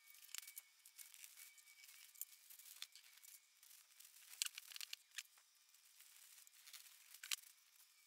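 Faint, scattered rustling of a fabric canopy with light ticks as fiberglass rods are handled and pushed into 3D-printed TPU connectors.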